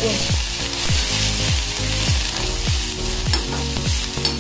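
Chopped onions, ginger-garlic paste and green chillies sizzling as they fry in oil in a kadai, stirred with a metal slotted spatula. Background music with a steady low beat runs underneath.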